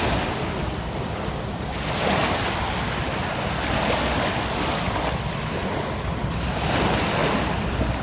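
Outdoor wind rushing over the microphone, rising and falling in gusts, with the choppy water of the Ohio River washing at the bank.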